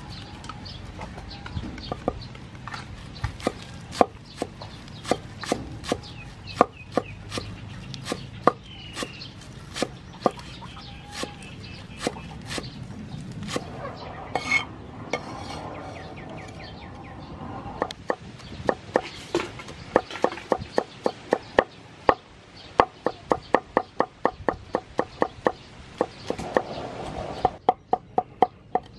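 Kitchen knife chopping green onions and garlic on a thick wooden cutting board: scattered single chops at first, then a fast even run of about three or four chops a second through the last third.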